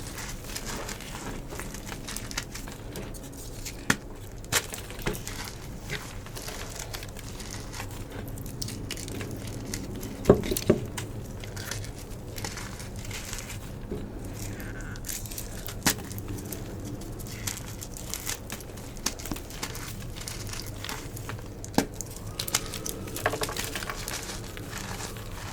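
Gym chalk being crushed and crumbled, with scattered sharp crackles and snaps over a low steady background; the loudest cluster of snaps comes about ten seconds in.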